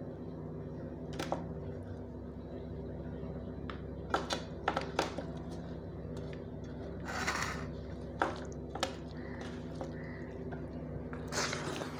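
Fingers tapping and scraping on a stainless-steel plate while mixing rice and dal by hand: a scattering of light clicks and two brief scrapes over a steady low hum.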